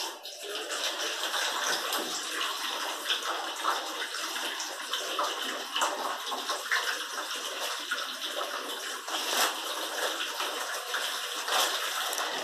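Graphite pencil scratching steadily across paper close to the microphone as a drawing is sketched, with small irregular ticks among the strokes.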